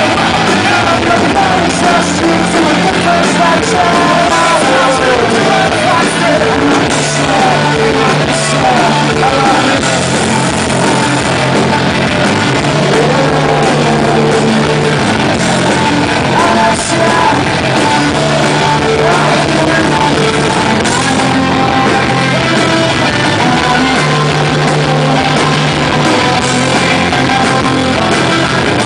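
Rock band playing live at full volume, with distorted guitars, bass, drums and a singer.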